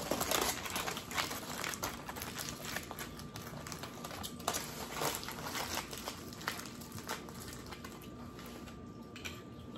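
Aluminium foil crinkling and crackling as it is folded and crumpled by hand to wrap up food. The crackles are densest at first and thin out near the end.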